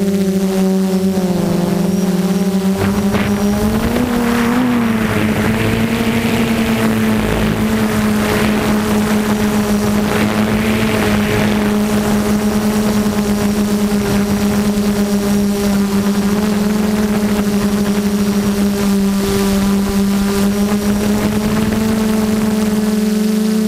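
F330 quadcopter's brushless motors and propellers humming steadily as it flies, heard from the onboard camera, the pitch dipping and rising briefly with throttle changes a few seconds in and near the end. A rushing noise swells over the hum between about four and twelve seconds in.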